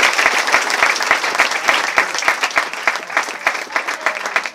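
Audience applauding after a speech, the applause thinning out into scattered, fairly regular single claps that fade toward the end.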